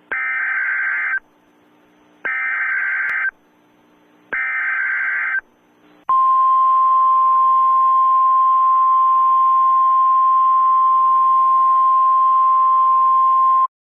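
Emergency Alert System header: three short bursts of screechy digital data tones about two seconds apart, then a long steady single-pitch attention tone held for about seven seconds before it cuts off.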